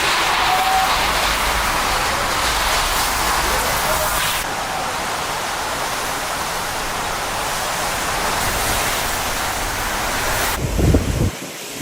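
Hurricane storm noise: a steady rushing hiss of wind and heavy rain that changes character abruptly twice where the footage cuts, with a brief low rumble near the end.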